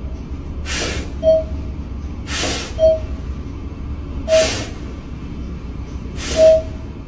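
Small dog sniffing hard at the gap between elevator doors: four loud sniffs about two seconds apart, over the steady low rumble of the moving elevator. A short beep sounds between the sniffs.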